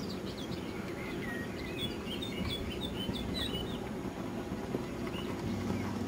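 Small birds chirping: a run of short, quick calls through the first three and a half seconds, over a steady low background noise.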